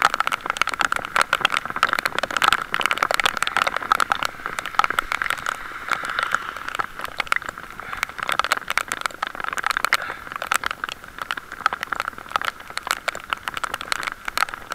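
Heavy rain hitting the bike-mounted camera and its microphone: a dense, irregular crackle of drops over a steady hiss.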